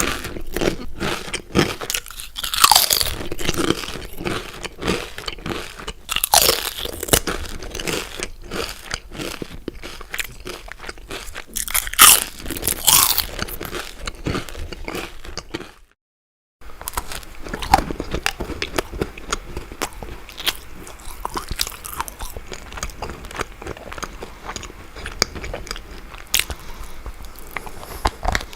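Potato chips crunched in the mouth: loud, crisp bites at about 3, 6, 12 and 13 seconds, with rapid crackly chewing between them. After a brief silence about halfway through, gingerbread is chewed, with softer, steadier crunching.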